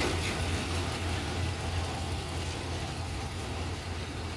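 Diesel locomotive engine running with a steady low drone, with an even rushing noise of the moving train over it; the engine sounds really strong.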